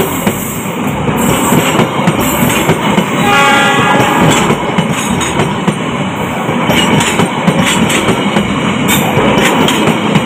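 Coaches of the Malabar passenger train rolling past at close range, a steady rumble with the wheels clacking over the rail joints and the switch. A brief pitched tone sounds for about a second, a little over three seconds in.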